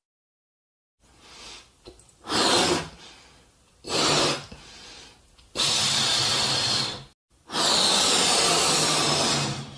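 Breath blown hard into rubber balloons as they are inflated by mouth: rushing puffs with short gaps for inhaling, starting about a second in, the last two puffs longer than the first.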